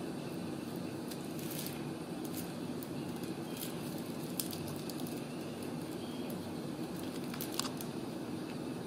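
A steady low mechanical hum, with a few light clicks and scratches from a kitten's claws on a corrugated cardboard scratcher as it wrestles a stuffed toy.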